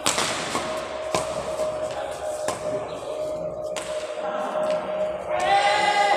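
Badminton rackets striking the shuttlecock in a rally: sharp cracks, the loudest right at the start, then about one every second and a quarter.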